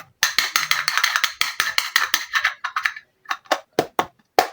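Small plastic miniature kitchen toy pieces clicking and clattering as they are handled: a fast run of clicks for about three seconds, then slower single clicks.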